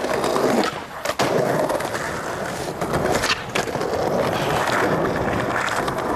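Skateboard wheels rolling over pavement, broken by a few sharp clacks of the board hitting the ground.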